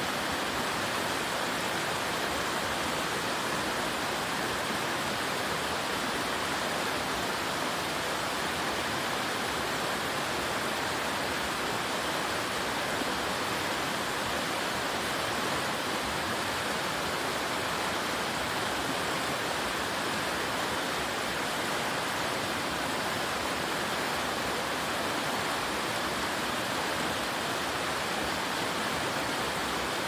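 Mountain stream rushing over rocks in whitewater rapids, a steady, even roar of water.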